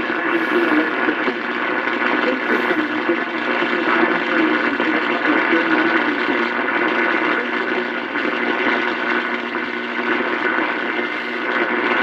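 AM radio receiver playing a steady hiss of static through its small speaker, with no clear words.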